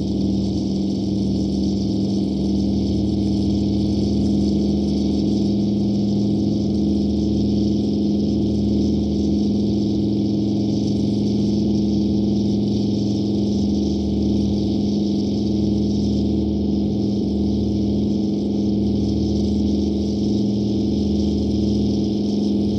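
Piston engine of a propeller fighter plane droning steadily in flight: one even low hum with a fast throb underneath.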